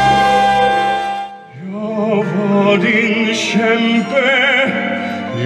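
Music: a song ends on a long held chord about a second in. After a brief dip, a man's operatic-style singing voice with wide vibrato comes in over accompaniment, sung in Swedish.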